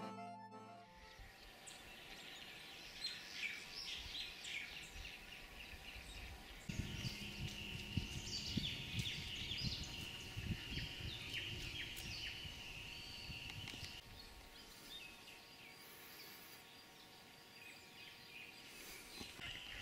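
Outdoor ambience of birds calling, with many short chirps and a steady high trill over a faint background hiss. A low rumble joins in the middle for several seconds.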